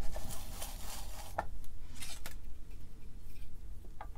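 Handling noises on a workbench: a rustle lasting about a second and a half, then a few light, separate clicks as small tools and solder wire are picked up.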